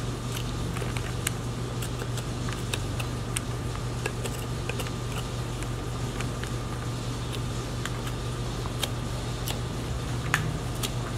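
Steady low hum of room machinery such as a fan, with scattered faint clicks and ticks as a boning knife and gloved hands work through a raw piglet's hindquarter.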